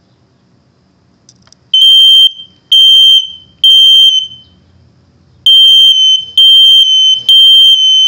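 Kidde 0915 smoke detectors sounding under test: loud, high-pitched beeps in two groups of three with a pause between, the standard three-beep fire-alarm pattern. The first beep comes about two seconds in.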